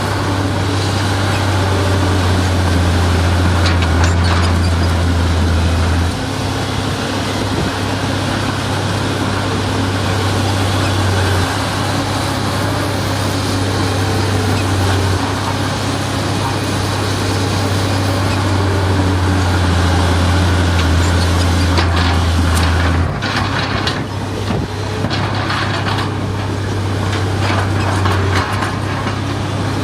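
Heavy diesel engine of earthmoving machinery (bulldozer or excavator) running steadily, its low drone swelling and easing several times as the load changes.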